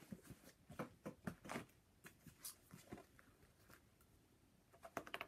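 Faint rustling and light taps of large paperback paper doll books being handled and lifted off a stack on a table. These come in scattered bursts, with a short cluster near the end.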